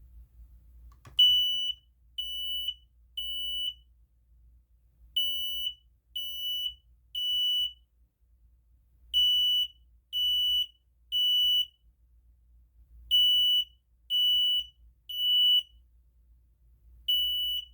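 Smoke alarm sounding on its test button in the temporal-three evacuation pattern: three high-pitched beeps, a pause, then three more, repeating five times, with the last group cut off after two beeps.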